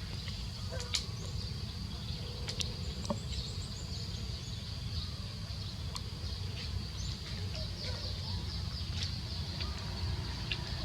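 Forest ambience: a steady high insect drone and scattered short bird chirps over a constant low rumble, with occasional sharp ticks.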